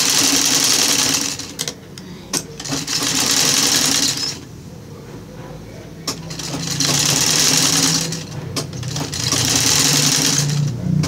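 Sewing machine stitching in four short runs of a second or two each, stopping between them, with a few sharp clicks in the pauses.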